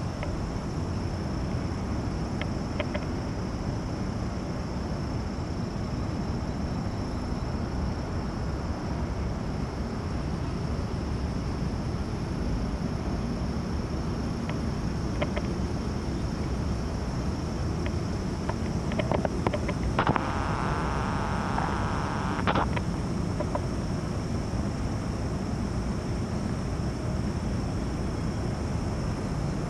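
Steady low rumbling outdoor background noise, with a few faint clicks in the second half.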